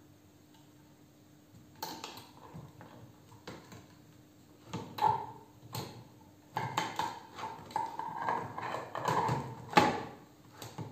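Irregular metallic clicks, taps and scrapes as the soundbox and parts of a Mignon Phone (Min-U-Phone) miniature portable gramophone are handled and fitted together, some clicks ringing briefly. They come in two loose clusters, a sparse one from about two seconds in and a busier run in the second half.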